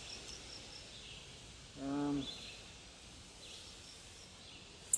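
Faint outdoor background with a few short bird chirps. About two seconds in, a brief steady hum lasts about half a second, and a sharp click comes at the very end.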